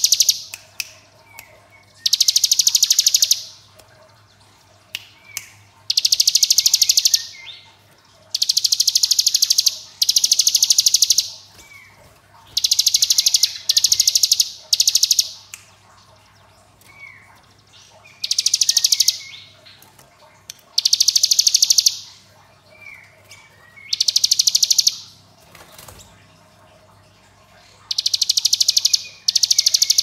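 Brown prinia (ciblek gunung) singing its machine-gun 'ngebren' trill: repeated loud bursts of very fast, high, buzzy rattling, each about a second long and coming every few seconds, with faint short chirps in between.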